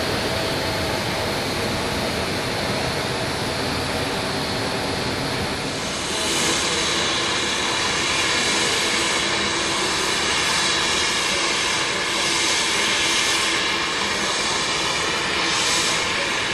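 Jet aircraft noise: a steady roar with a high whine running through it. It grows louder and brighter about six seconds in, then swells a few times.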